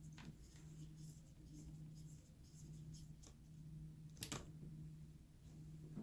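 Faint small clicks and scrapes of a screwdriver driving tiny screws into a laptop screen, with one sharper click about four seconds in, over a low steady hum.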